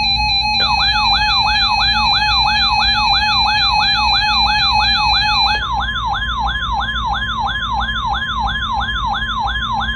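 Electronic emergency alert signal: a steady tone gives way about half a second in to a rapid warbling siren-like sweep, about three rises and falls a second. A second steady tone joins about halfway through.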